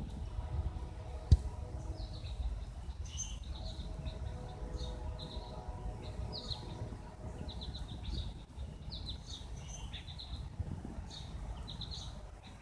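Birds chirping and singing in strings of short, high notes and trills, over a low background rumble. A single sharp knock about a second in.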